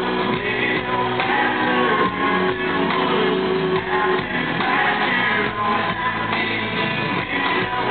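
Live country band performance: a male lead singer sings over strummed acoustic guitar and the band through the concert sound system, recorded from the audience with a dull, muffled top end.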